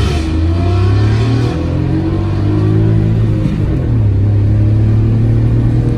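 Audi RS5's V8 engine running and revving, its pitch rising in the first second and then holding steady, with a brief dip about three and a half seconds in.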